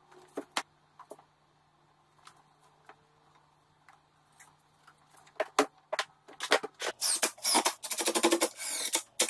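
Scattered clicks and knocks of wood and clamps being handled, then, about six and a half seconds in, a DeWalt cordless drill driving pocket-hole screws into the pine 2x2 frame in short loud bursts.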